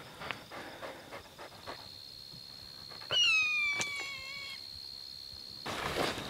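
A hawk gives one long scream about three seconds in, falling in pitch and lasting about a second and a half. Near the end, footsteps start swishing through dry prairie grass.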